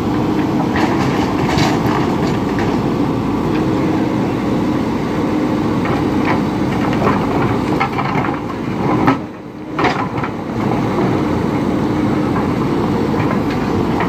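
JCB 3DX backhoe loader's diesel engine running steadily under hydraulic load as the rear bucket digs into a stone pile, with occasional knocks of stone against the steel bucket. The engine sound dips briefly about nine seconds in.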